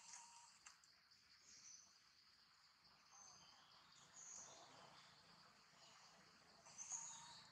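Faint forest ambience: a steady, high insect drone, with a few short, high chirps over it, the clearest near the end.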